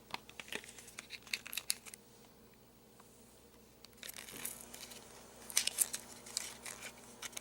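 Lip gloss packaging being torn open and crinkled by hand. There is a quick run of crackles, a short pause, then longer crinkling from about four seconds in.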